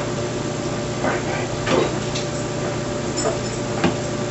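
Microwave door being opened and the plate handled inside: a handful of short knocks and clicks, the sharpest near the end, over a steady background hum.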